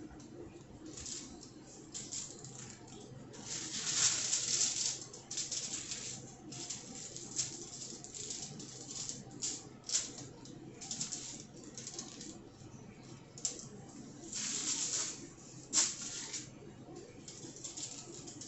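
Kitchen handling noises of hands working croissant dough and hot dogs on a counter: irregular rustles, light taps and scrapes, with longer, louder rustling about four seconds in and again near the fifteen-second mark.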